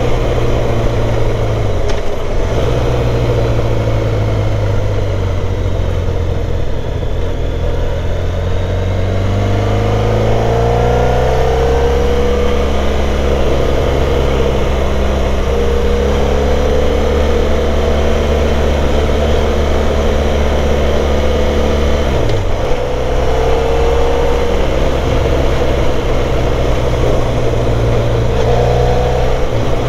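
Motorcycle engine running under way while riding. Its revs climb and fall, dipping briefly about two seconds in and again a little past twenty seconds before climbing again, over a steady rush of wind and road noise.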